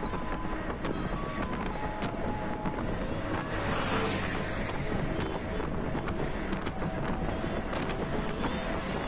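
Steady wind and road noise of a moving car, heard from inside the car. It swells into a louder rush about four seconds in as the car passes close by a tractor.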